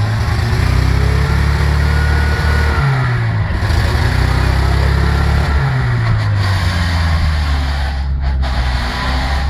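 Off-road vehicle's engine running hard under throttle, the revs dropping off twice and building again.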